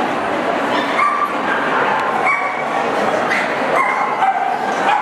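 Dogs yipping and whining in short, high calls, several times, over the steady hubbub of a crowded hall.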